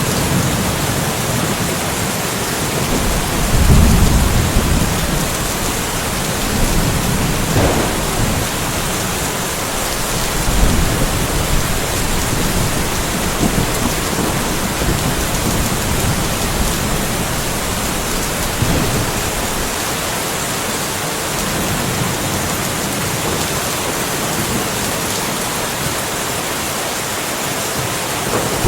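Steady rain falling through a light thunderstorm, with low rolls of thunder under it: the loudest a few seconds in, smaller ones around eight and eleven seconds in, and another starting right at the end.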